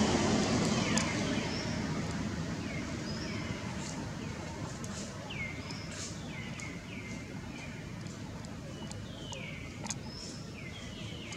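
Birds calling: short chirps that slide down in pitch, repeated over and over, with a few brief higher whistles. Beneath them a low rumble fades over the first few seconds.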